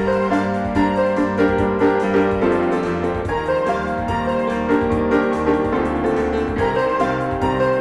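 Piano music: a melody of notes changing every half second or so over low notes held for a few seconds.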